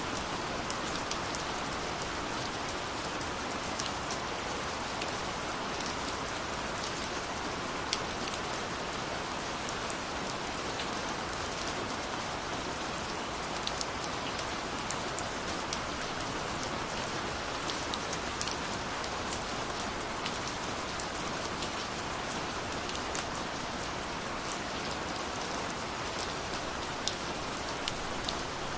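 Steady rainfall, an even hiss of rain with many individual drops ticking sharply on a surface throughout.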